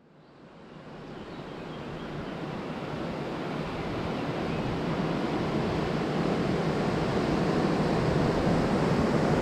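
Mountain river rushing over rocks, a steady rush of water that fades up from silence over the first few seconds and then holds.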